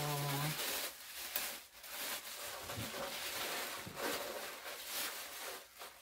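Tissue paper crinkling and rustling as hands unfold it from a wrapped gift, in irregular scratchy handfuls. A short voice sound is heard in the first half second.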